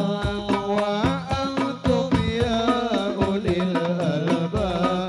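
Men singing an Arabic sholawat into microphones, with hadrah frame drums (rebana) beating a steady rhythm beneath the voices.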